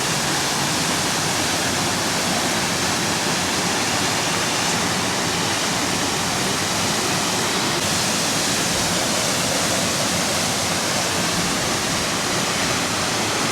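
Waterfall pouring down rocks close by, a steady, loud rush of falling water.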